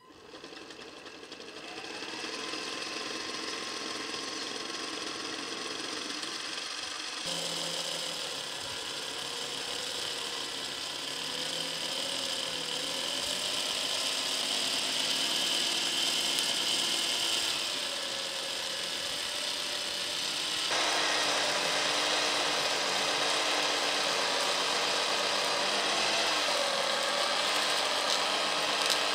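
Electric motors and snowblower auger of a 3D-printed radio-controlled tracked snow machine whining as it drives through snow and blows it out of the chute. The whine wanders up and down in pitch, and the sound shifts abruptly about 7 and 21 seconds in.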